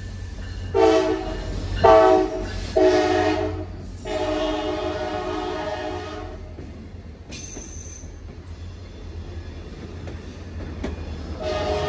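Diesel locomotive air horn, sounded up close as the locomotive passes: three short blasts and then one held for about two seconds. After it, passenger cars roll by with steady wheel noise and scattered clicks of wheels over rail joints. The horn sounds again near the end.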